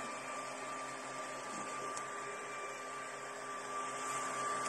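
ERYONE Star One FDM 3D printer running mid-print: a steady machine hum with a thin, steady high tone from its fans and motors, a little louder near the end.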